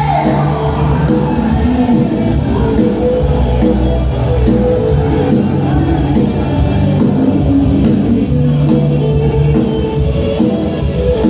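Live band playing upbeat dance music loud through a PA system: a sung note trails off at the start, then an instrumental stretch with a steady beat and bass line.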